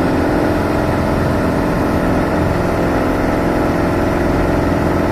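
Piper PA-28's piston engine and propeller running steadily at low power, heard from inside the cockpit while the plane rolls out on the runway after landing.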